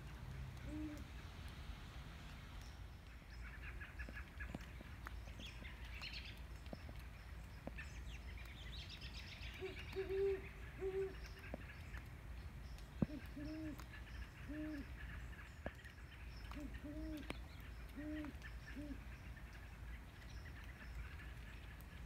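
Two great horned owls hooting: short, deep hoots in groups of three or four, a slightly higher-pitched group about ten seconds in answered by a lower-pitched series after it. Faint chirps of small birds come in between the hoots.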